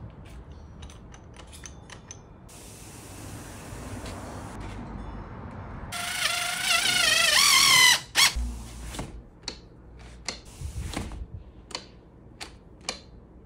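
DeWalt cordless driver running for about two seconds, driving a screw into a sliding door's latch strike; its whine wavers and gets louder, then stops abruptly. Light sharp clicks and knocks follow as the door handle and latch are worked.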